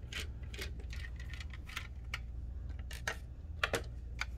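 Small metallic clicks and taps as a screwdriver turns out the screws of a perforated sheet-metal hard drive enclosure and the enclosure is handled; the clicks come irregularly, about a dozen of them.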